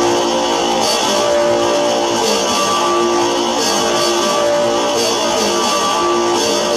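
Loud, dense experimental noise music: a steady layered drone of held tones under a hissy upper layer that brightens about every second and a half.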